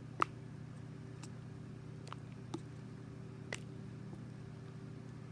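Watery homemade slime being squeezed and pulled in a plastic cup, giving about five small sharp pops, the first the loudest.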